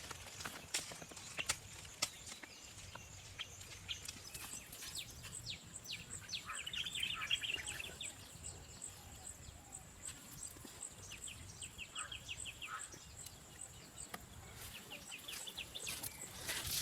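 Small birds chirping faintly in short rapid trills, twice, over a steady high thin tone and scattered light clicks.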